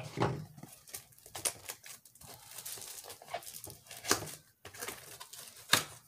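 A cardboard diamond painting kit box being handled and opened: scattered knocks and clicks with rustling between them.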